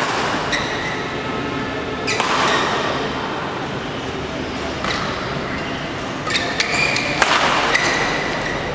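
Echoing badminton-hall ambience: crowd chatter and voices, with scattered sharp knocks and short high squeaks from play on the courts.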